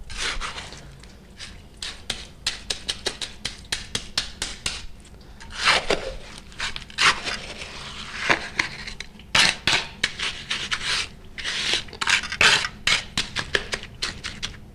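Hand trowel working wet concrete around a plastic sump pit: quick runs of sharp taps and clicks from the blade, with longer scrapes across the concrete, packing it down to drive out trapped air.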